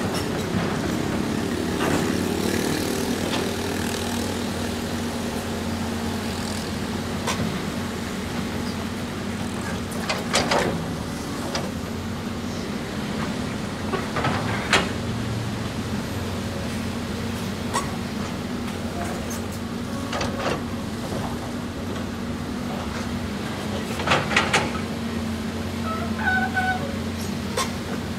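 CAT 320D hydraulic excavator's diesel engine running steadily under load while it digs rocky ground, with scattered sharp knocks of the bucket and stones, including a quick run of three about three-quarters of the way through.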